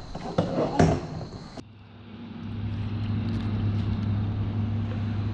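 A jumble of knocks and clatter that cuts off abruptly about a second and a half in. A steady low engine-like hum then comes in, grows louder over about a second and runs evenly.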